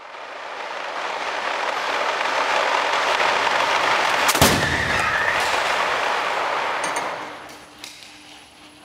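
Side-impact crash test on a Volvo V90 Cross Country at 50 km/h: a rushing noise of the barrier trolley running in swells up, then a single sharp crash about four and a half seconds in as the barrier strikes the car's side. The rushing dies away about seven seconds in, followed by a few small knocks.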